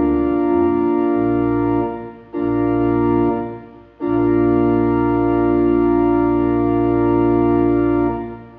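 Organ playing held chords, breaking off twice, with a final long chord that fades away near the end: the closing of a hymn accompaniment.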